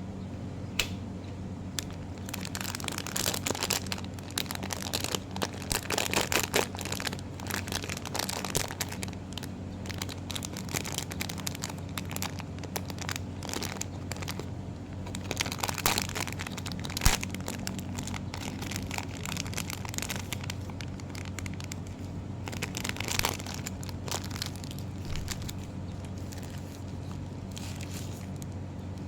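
Blind-box toy packaging handled by hand: wrapper and box crinkling and rustling in irregular bursts, with one sharp click about seventeen seconds in.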